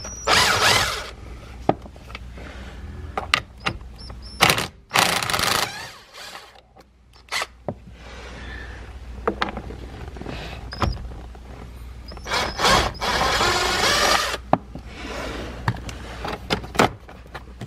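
Hand work on a plastic steering column cover: a socket undoing its 7 mm screws and the cover being pulled apart. Several scraping, rattling bursts a second or two long, scattered clicks and knocks, and a quieter stretch partway through.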